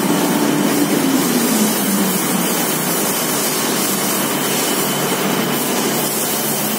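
Cotton waste recycling machine running, a steady loud mechanical din from its motors, chain-driven rollers and fibre duct as it processes grey mélange cotton waste. A low hum under the noise sags slightly in pitch during the first couple of seconds, then holds.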